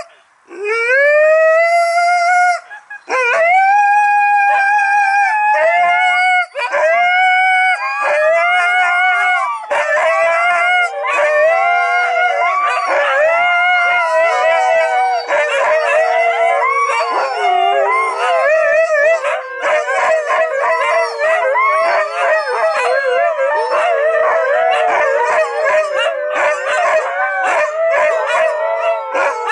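Huskies howling: one dog alone at first in long calls that rise and then hold, with short breaks between them, then several others joining from about ten seconds in, in an overlapping chorus of howls with one lower howl held steady underneath.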